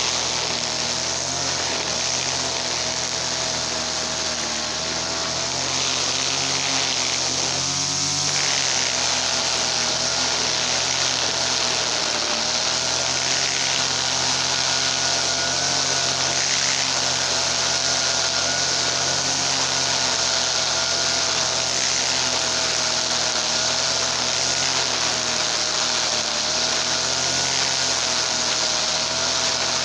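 Small two-stroke brush cutter engine (TL33 type) running at high speed, its pitch wavering slightly. About eight seconds in the revs dip briefly and pick back up.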